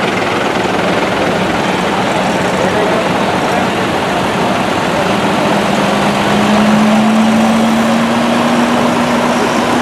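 Diesel engine of a large Fendt tractor running at low speed as it drives slowly past at close range, with a steady hum whose pitch rises a little about halfway through as the engine picks up revs. Other tractor engines run in the background.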